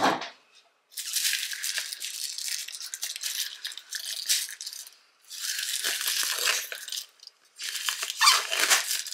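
Crinkling plastic shrink-wrap being pulled off a cardboard advent calendar box, in three stretches of crackling with short pauses between them.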